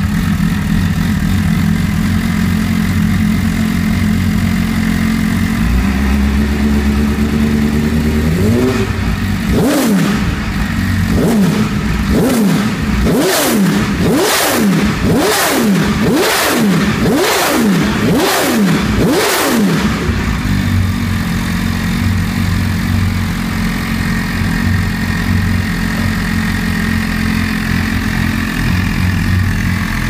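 MV Agusta F4 CC's 1078 cc inline-four idling, then blipped about ten times in quick succession, roughly once a second, before it settles back to a steady idle.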